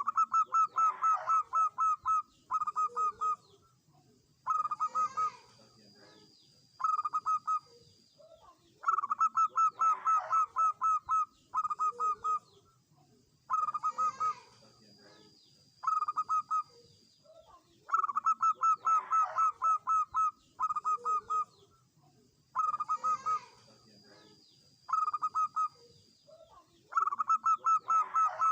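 Zebra dove (perkutut) song: bursts of rapid staccato cooing notes, repeating every two to three seconds, a longer burst followed by a shorter one. A faint high-pitched steady tone and ticking notes sound above it.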